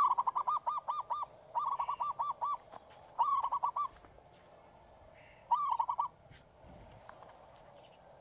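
A bird calling in four quick runs of short rising-and-falling notes, several notes a second, the first run the loudest.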